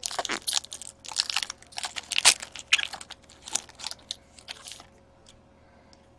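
Crinkling and tearing of a hockey card pack's foil wrapper as it is torn open, in a run of crisp crackles that is loudest a little past two seconds in and dies away near the end.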